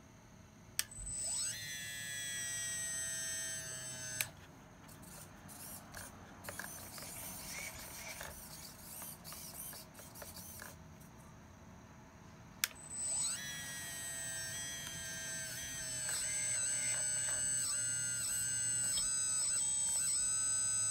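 Motors of a Huina 580 radio-controlled metal excavator running as its boom and bucket move. A click about a second in, then a whine that rises in pitch and holds steady until a click about four seconds in. After fainter mechanical sounds, another click and rising whine come about two-thirds through and run on, changing pitch in steps, to the end.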